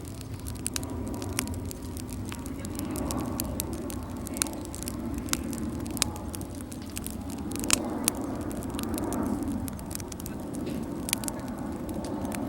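Wood fire crackling in a Snow Peak Takibi-dai S fire pit: irregular sharp pops and snaps over a low, steady rumble.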